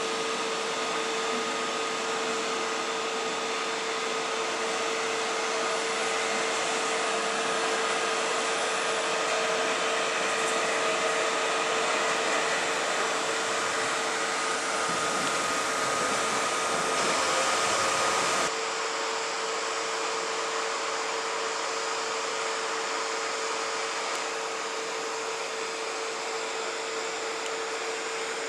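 Steady rushing noise with a constant hum, as ICE high-speed trains pass slowly through a station. The noise swells slightly, then drops and changes abruptly about two-thirds of the way in.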